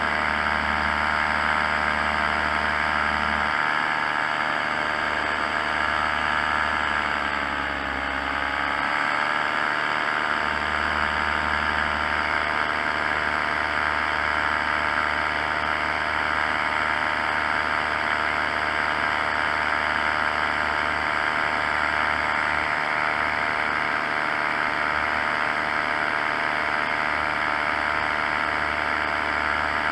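Paramotor engine and propeller running steadily in flight; the engine note dips briefly in pitch about eight seconds in and comes back up.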